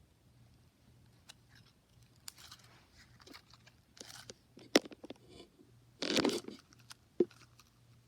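Slime being handled: scattered sharp clicks and short crackling squelches, the loudest a half-second burst about six seconds in.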